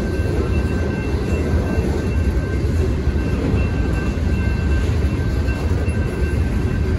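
A mixed freight train's boxcars rolling steadily past a grade crossing: a continuous low rumble and clatter of steel wheels on the rails.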